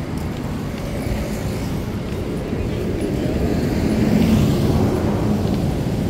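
Street traffic: a motor vehicle passes close by, its rumble swelling to its loudest about four seconds in and then easing off.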